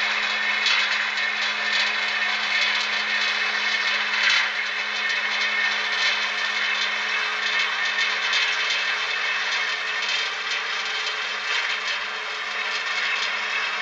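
Märklin 74861 H0 model turntable's electric drive whirring as the bridge rotates: a steady hum with a rasping gear noise over it.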